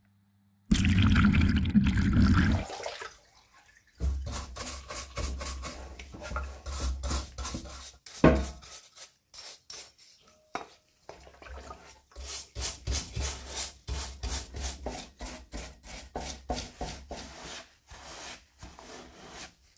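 A brush scrubbing wet cast-iron coffee-grinder parts in a tray of cleaning liquid, in quick repeated back-and-forth strokes. A louder rush of noise lasts about two seconds near the start.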